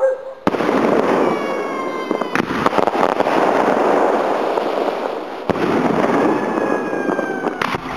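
Aerial firework shells, 3 to 4 inches, bursting: a sharp bang about half a second in, then seconds of loud echoing noise. Further sharp reports come near the middle and near the end.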